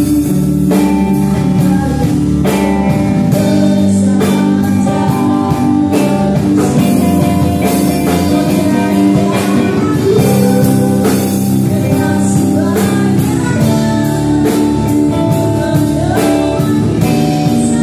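Live band performing a song: a woman singing into a microphone over strummed acoustic guitar, electric guitar and a drum kit keeping a steady beat.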